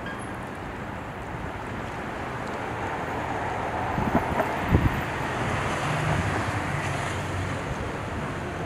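Outdoor wind noise rumbling on the microphone, swelling midway, with a few low thumps from gusts about four to five seconds in.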